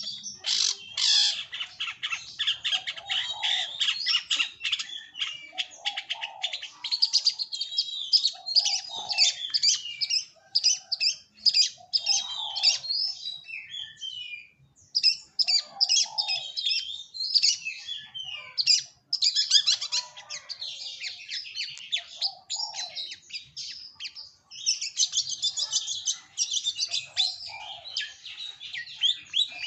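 Long-tailed shrike (cendet) singing a fast, scratchy, chattering song that runs on with only brief pauses. Short lower notes recur every couple of seconds.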